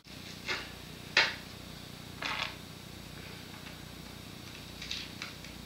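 A few short scratchy scrapes and rasps from hands working at a skateboard deck's grip tape, about five in all, the loudest about a second in.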